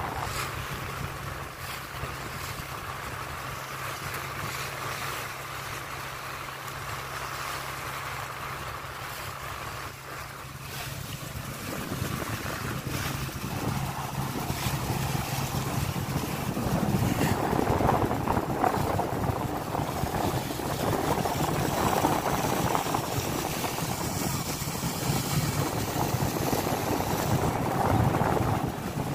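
Purse-seine fishing boat under way: its engine runs with a steady low hum while water rushes and splashes along the hull. The rushing grows louder about halfway through.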